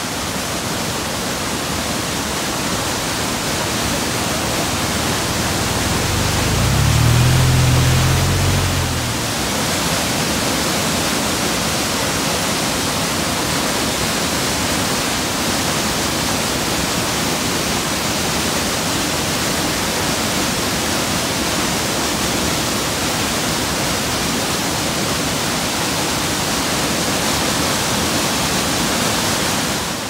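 Ryūzu Falls, a rocky cascade waterfall, rushing steadily: a dense, even hiss of white water. A brief low rumble swells about seven seconds in.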